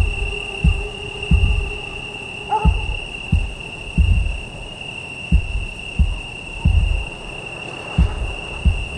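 Crickets trilling in one steady high note, over a series of low, dull thumps that come roughly every two-thirds of a second with a few longer gaps. A short sliding call sounds about two and a half seconds in.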